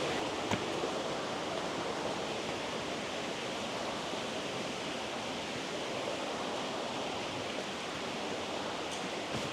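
Steady rush of a fast mountain stream's water over rocks.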